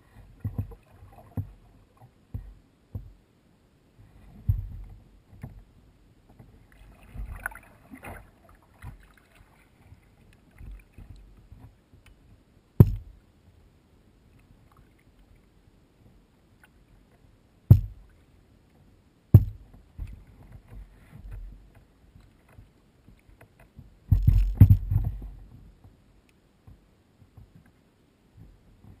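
Kayak paddling: the paddle dipping and pulling through calm water in uneven strokes with low splashing thuds, a few sharp knocks in the middle stretch, and a louder splashing rush near the end.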